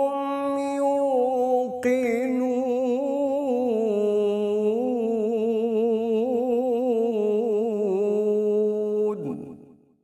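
A male reciter chanting the Quran in Arabic (tilawat), drawing out long melodic notes with a wavering, ornamented pitch, a new phrase taken up about two seconds in; the voice cuts off about nine seconds in at the end of the verse.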